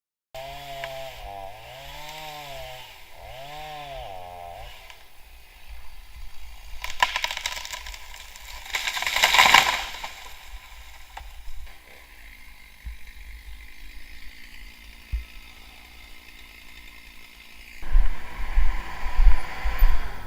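Chainsaw revving up and down several times, then a louder rush of noise building to a peak about nine seconds in before falling back to a quieter, steady running sound.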